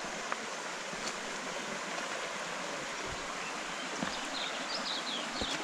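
River water running steadily over rocks, a rushing hiss. About four seconds in, a series of short, high chirps joins it, a few to the second.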